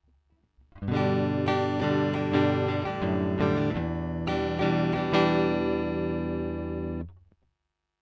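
Electric guitar played through a Boss Dyna Drive DN-2 overdrive pedal, giving a distorted tone: a short riff starts about a second in and ends on a held chord that is cut off suddenly near the end.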